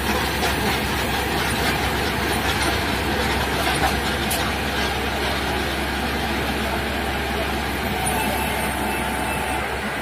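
Paddy combine harvester running steadily, its engine and threshing machinery making a loud, even mechanical din as it unloads grain through its overhead auger.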